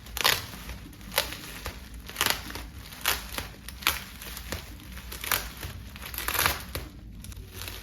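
Packaging crinkling as an unboxed jersey is handled: about ten short, uneven rustles and crackles.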